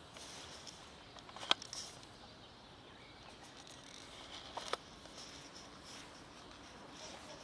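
Cats eating dry food from a plastic tray: faint crunching and crackling, with a sharp click about one and a half seconds in and another near five seconds.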